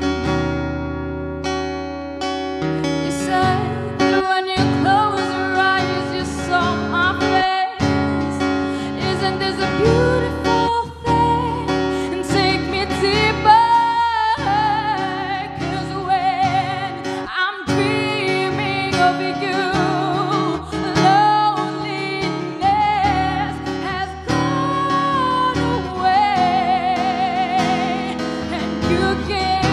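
A woman singing live into a microphone, accompanied by a strummed acoustic guitar, with long held notes sung with vibrato.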